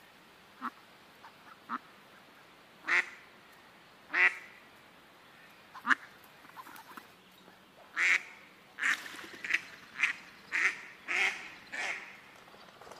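Ducks quacking: a few single quacks spaced a second or more apart, then a quicker run of about seven quacks from about eight seconds in.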